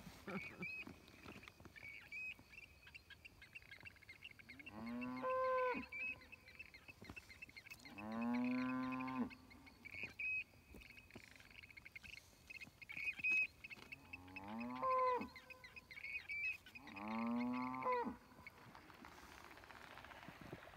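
Cattle mooing: four long, drawn-out moos several seconds apart.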